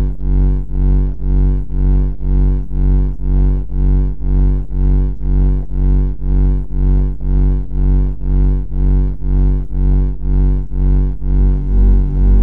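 A loud, low droning tone with a stack of overtones, pulsing evenly about twice a second.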